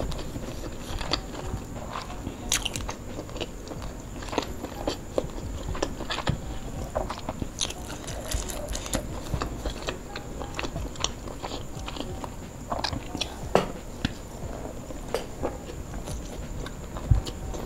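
A person chewing and biting fried duck meat, with irregular crunches and wet mouth clicks.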